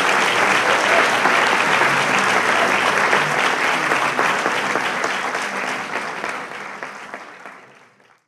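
Audience applauding steadily, then fading out over the last few seconds.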